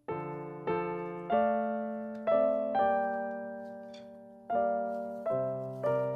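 Solo piano playing a slow melody, single notes and chords struck and left to ring and fade.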